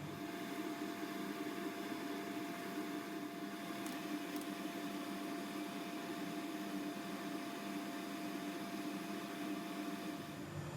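Wood lathe running a buffing tree of stitched cloth buffing mops: a steady hum with a whirring hiss.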